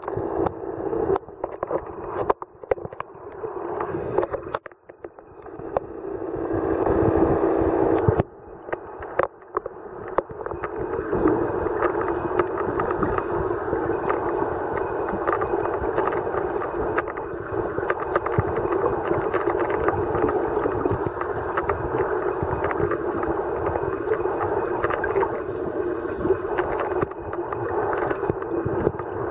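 Underwater sound picked up through a camera's housing: a steady drone with scattered sharp crackling clicks, swelling briefly a few seconds in and holding steadier from about eleven seconds on.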